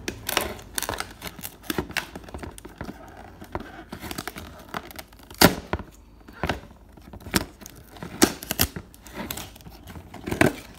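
Thin protective plastic film being peeled and torn off a plastic toy bathtub: irregular crinkling and crackling with scattered sharp clicks, the loudest about five seconds in.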